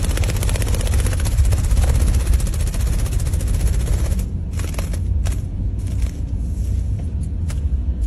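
A small parrot flapping its wings hard right by the microphone, a loud, rapid fluttering with a heavy low rumble. After about four seconds the fluttering thins out, leaving the rumble and a few sharp clicks.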